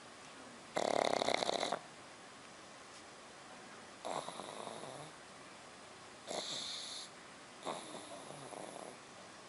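Sleeping puppy snoring: four snores a couple of seconds apart, the first the loudest and longest.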